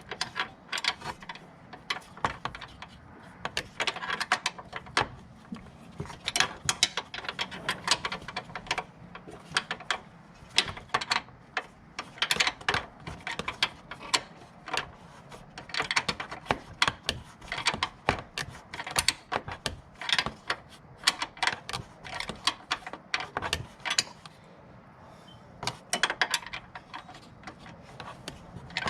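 Ratchet wrench and metal hand tools clicking and clinking in irregular runs of quick clicks.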